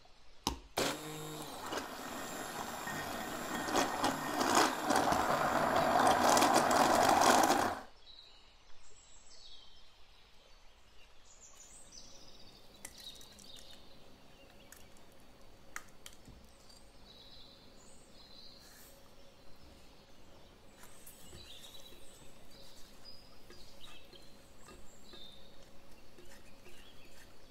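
Immersion blender running for about seven seconds, pureeing chopped kiwi in a glass bowl, then cutting off suddenly. Afterwards, faint scraping and light clinks of a wire whisk stirring kiwi puree in a small stainless steel saucepan.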